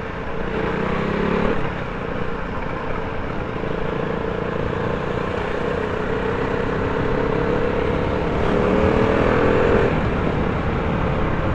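KTM Duke 390's single-cylinder engine running under way at speed, over a steady rush of wind and road noise. The engine note climbs briefly about a second in and again from about eight seconds in, dropping off each time.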